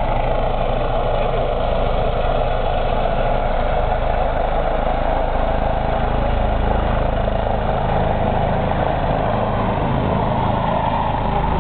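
Helicopter rotor and turbine noise, steady throughout, as the helicopter comes down low to land.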